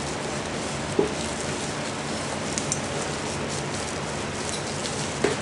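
Steady, even hiss, with two short taps about a second in and near the end.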